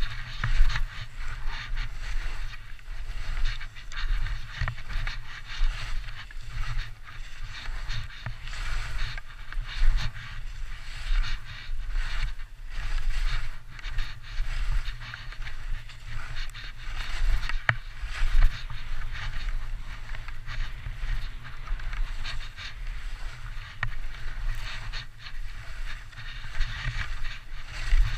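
Skis scraping and swishing through snow on a downhill run, in uneven surges with the turns, over a low rumble of wind buffeting the helmet-mounted camera.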